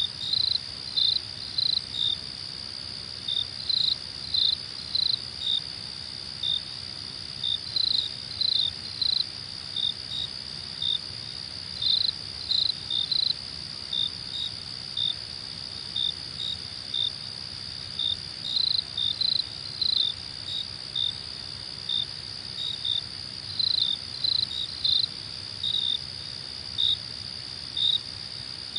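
Crickets chirping: a continuous high trill with short, louder chirps over it, often in quick runs of two to four.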